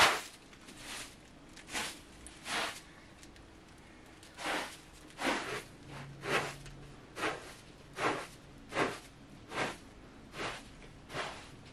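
Short-handled broom sweeping a carpet: a steady run of brisk swishing strokes, a little under one a second, with a pause of about two seconds early on the way through.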